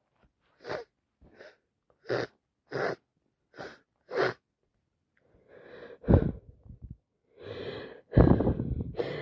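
A person with a heavy head cold sniffing six times in quick short bursts, then two wind-up in-breaths that each end in a loud sneeze, about two seconds apart.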